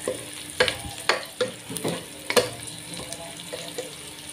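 Sliced onions and garlic sizzling in oil in a non-stick pot, stirred with a metal ladle that knocks and scrapes against the pan several times, each knock ringing briefly.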